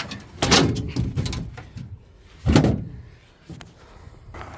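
Paddlefish being dragged over a boat's gunwale and landing on the diamond-plate metal deck: a series of knocks and clatter, with one heavy thump about two and a half seconds in.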